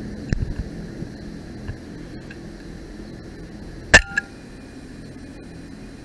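A .22 FX Maverick PCP air rifle fires a single shot about four seconds in: one sharp, loud crack with a short ring, followed a fraction of a second later by a smaller click. A low steady hum runs underneath, with a few soft knocks near the start.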